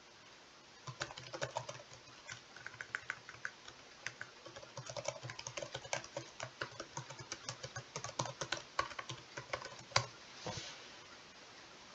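Typing on a computer keyboard: a run of irregular, quick keystrokes, ending in one louder click about ten seconds in.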